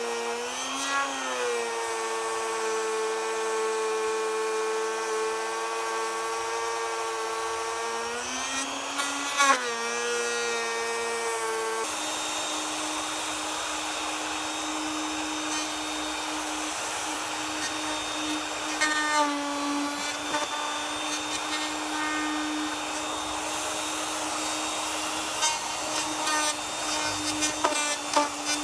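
Black & Decker plunge router running, its motor whine sagging in pitch a few times as the bit cuts into the wood. About twelve seconds in the sound changes abruptly to a higher, noisier whine, with a few sharp ticks near the end.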